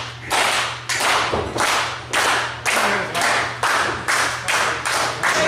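Rhythmic hand clapping, a steady beat of about two sharp claps a second, echoing in a large hall.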